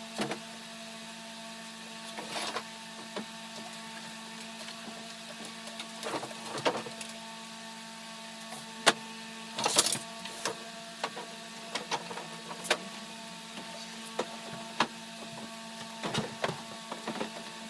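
A steady electrical hum with scattered clicks and knocks of things being handled and set down, the sharpest about 9 s in and a cluster just before 10 s.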